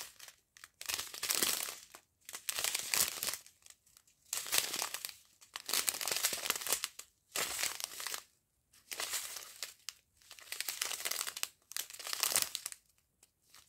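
Small plastic bags of round diamond-painting drills crinkling as they are handled one after another. It comes in spells of about a second each, with brief pauses between.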